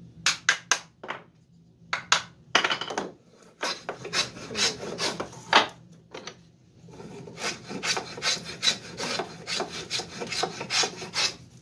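Wooden scrub plane with a rounded iron taking quick strokes across a pine board, each stroke a short rasping cut that scoops out a thick shaving. The strokes come in short runs, faster and more regular in the second half.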